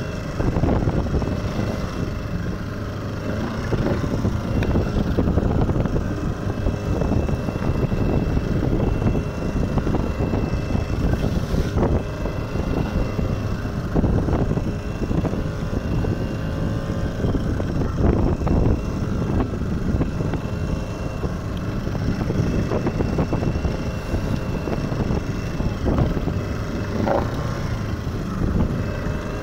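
A small fishing boat's motor runs steadily while it is under way, with wind buffeting the microphone and waves rushing and splashing against the hull.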